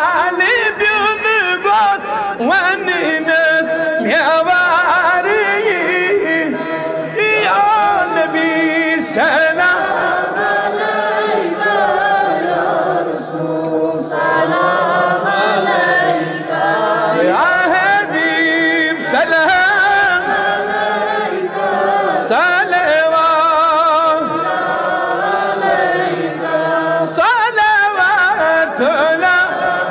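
A man's solo voice chanting a devotional Salaam with no instruments, in long, wavering, ornamented notes with short breaths between phrases.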